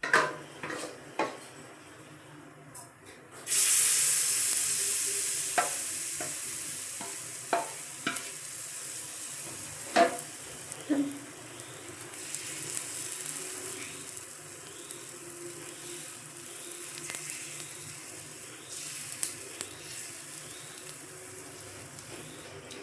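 A paratha frying on a hot griddle: a loud sizzle starts suddenly about three and a half seconds in and slowly dies down, with the sharp clicks and knocks of a utensil on the pan.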